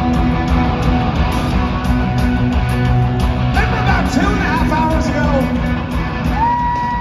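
Live rock band playing loud, with electric guitars, heard from the crowd through the concert PA. A long held note comes in near the end.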